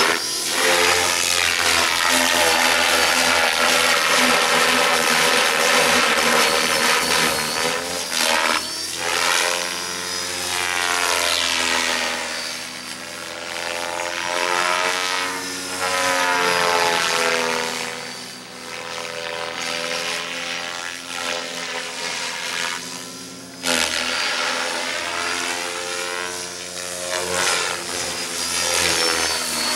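Align T-Rex 600E Pro DFC electric radio-controlled helicopter flying 3D manoeuvres with its rotor head at about 2600 rpm. The whine of its motor and drivetrain and the whoosh of its rotor blades rise and fall in pitch as it loads and unloads the head. It grows fainter about eighteen seconds in as it moves away, then comes back.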